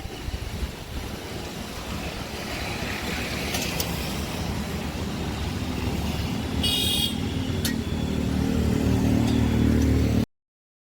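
Road traffic on a rain-wet street, a steady hiss of passing vehicles. About six and a half seconds in, a nearby vehicle's engine grows louder, and a short horn toot sounds just after it starts.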